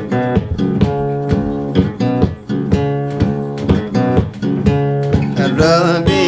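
Background song led by plucked guitar over a steady beat; a singing voice comes in near the end.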